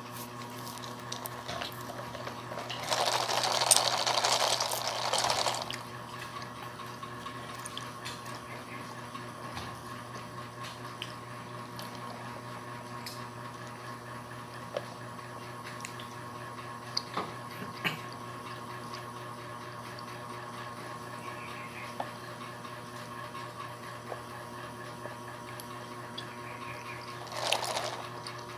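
Bubble milk tea being sucked up through a straw: one loud slurp lasting about two and a half seconds, a few seconds in, and a shorter slurp near the end, over a steady background hum.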